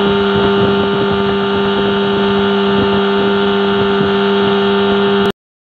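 15-horsepower outboard motor running steadily at speed, pushing a small fishing boat. The engine note holds an even pitch and cuts off suddenly just after five seconds.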